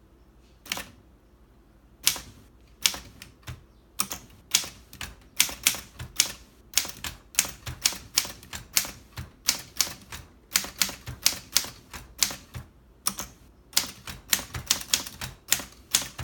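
1938 Underwood portable typewriter being typed on. After a short lull with a single click, a run of sharp key strikes begins about two seconds in, three or four a second, with brief pauses between words.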